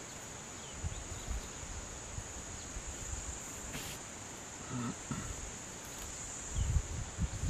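Steady high-pitched drone of insects, with a few soft low thuds and rustles as an African elephant's trunk tugs at grass.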